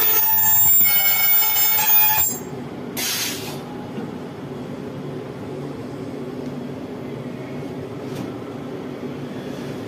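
Ultrasonic plastic welder's horn screeching with several high whining tones as it welds a plastic AC blower wheel, cutting off about two seconds in. A short hiss follows about a second later, then a steady low machine hum.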